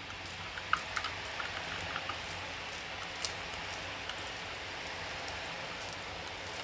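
Besan shev dough strands frying in hot oil: a steady sizzling hiss as the oil bubbles around the freshly pressed strands, with a few small pops in the first half.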